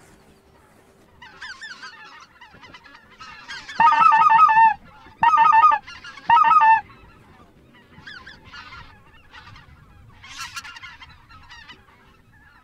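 Snow geese calling as a flock comes in: a busy chorus of high, overlapping honks and yelps, with three loud, long honks close by about four, five and six seconds in.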